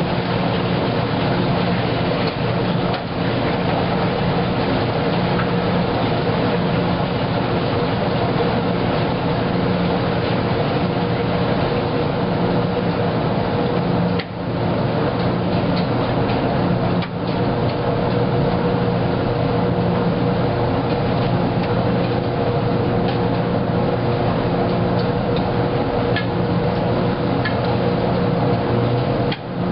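Wascomat Junior W73 commercial front-loading washer running, its drum tumbling laundry through wash water, with a steady motor hum and water sloshing. The level dips briefly a few times.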